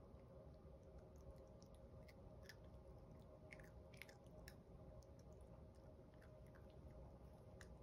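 Chihuahua puppy chewing kibble gently: faint, scattered crunches, most of them through the middle, over a low steady room hum.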